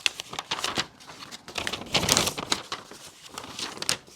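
Paper and plastic kit packaging rustling and crinkling as it is handled, a run of small crackles and taps, loudest about two seconds in.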